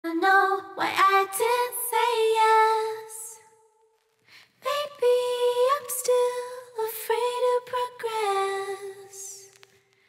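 A woman's voice singing slow, drawn-out notes with little accompaniment, pausing briefly about four seconds in.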